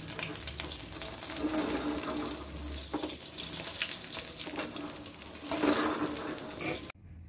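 Egg omelette sizzling and crackling in hot oil in a non-stick frying pan, with a wooden spatula pushing and scraping it around the pan. The sizzle cuts off abruptly near the end.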